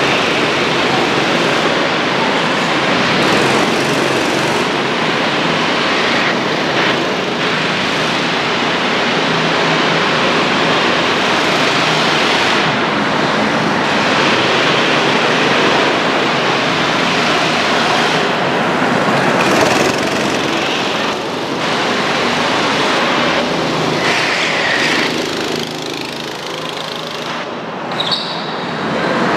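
Rental go-kart engines running on an indoor track, a loud, steady, dense din in the hall.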